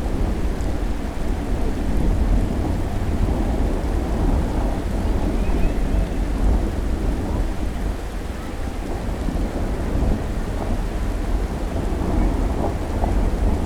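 Thunderstorm: steady rain falling, with a deep, continuous rumble underneath that does not break into separate claps.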